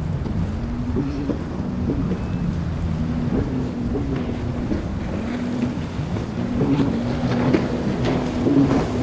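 A high-performance offshore powerboat's engines running hard through rough surf, their pitch rising and falling again and again as the hull crosses the waves. Wind buffets the microphone under it.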